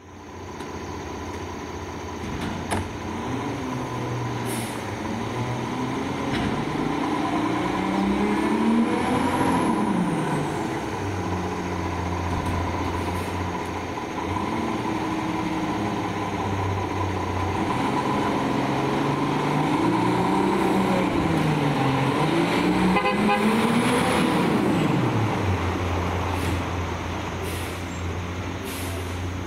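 Battle Motors LET2 garbage truck with a McNeilus rear-loader body running, its engine revving up and falling back in slow swells about a third of the way in and again several times in the second half. A steady high whine runs under it.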